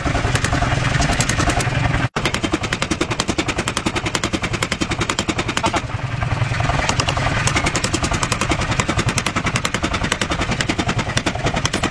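Mechanical power hammer striking a red-hot steel blank, cut from plow-tooth steel, in a rapid steady run of heavy blows, several a second, as the blank is forged into a small knife blade. The sound cuts out for an instant about two seconds in.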